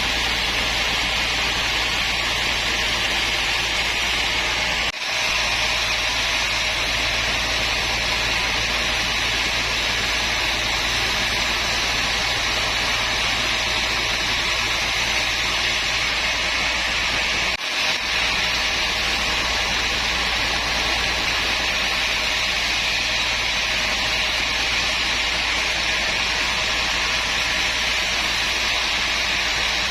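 Woodworking power machine running with a steady, unchanging hiss-like drone and a low hum under it, broken by two brief dropouts, about five seconds in and again near eighteen seconds.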